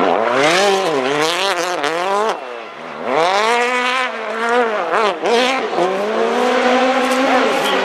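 Rally car engine revving hard under wheelspin, its pitch surging up and dropping back again and again, with a short lift about two and a half seconds in.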